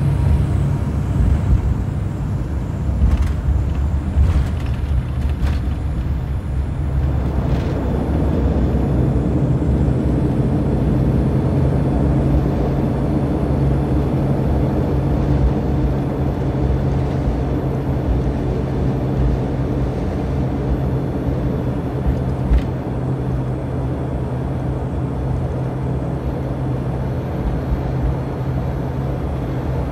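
ATR 72-600 turboprop engines and propellers, Pratt & Whitney PW127M, heard from inside the cabin as the aircraft rolls along the runway after landing: a steady, loud drone with a low hum. About seven seconds in it grows rougher and fuller.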